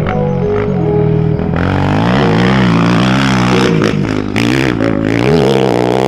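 Honda dirt bike engine being ridden hard off-road, its revs rising and falling repeatedly through throttle and gear changes, with background music underneath.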